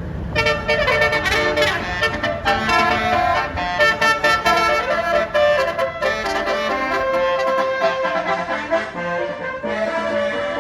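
Bus telolet horn (a Basuri multi-tone air horn) playing a continuous tune, with reedy notes stepping up and down in pitch, over a low rumble.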